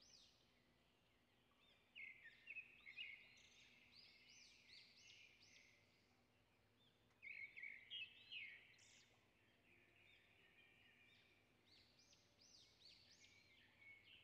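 Faint chirping of small birds in the background: clusters of quick repeated chirps about two seconds in and again about seven seconds in.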